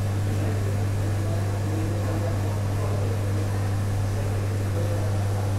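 Steady, unchanging low hum of running kitchen machinery, with a strong low drone and a faint airy hiss above it.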